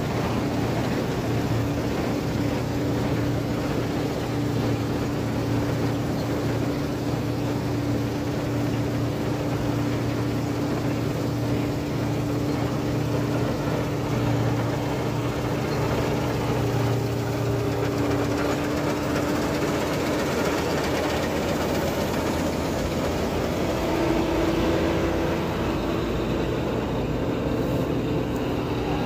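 Claas Dominator 48S combine harvester running steadily at work, its diesel engine and threshing machinery making a constant hum; the held tone shifts slightly in pitch about two-thirds of the way through.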